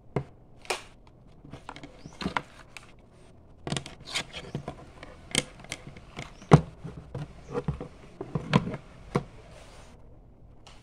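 Irregular clicks, taps and knocks from hands handling a toy sniper rifle, the loudest knock about six and a half seconds in.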